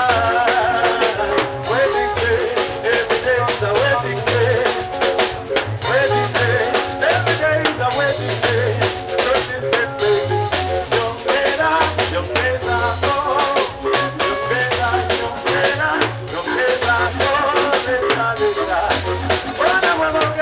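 Live band music played over a PA: a steady drum-kit beat with rimshots, a bass line, and a male singer singing into a handheld microphone.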